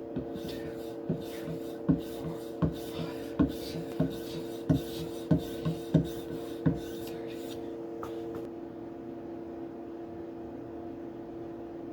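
Knife blade being drawn edge-trailing along a hard polymer strop loaded with abrasive emulsion, in short scraping strokes about two a second that stop about seven seconds in. A steady low hum runs underneath.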